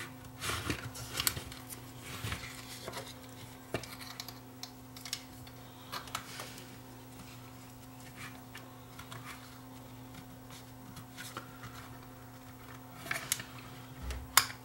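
Irregular small clicks and taps of the plastic radio case and solar panel being handled and pressed together, over a faint steady hum.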